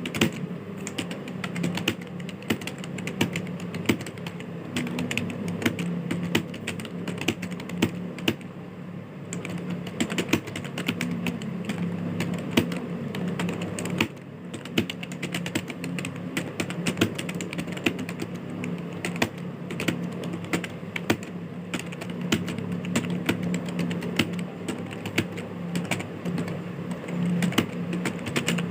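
Fast, continuous typing on a computer keyboard, a rapid run of key clicks with a brief pause about fourteen seconds in.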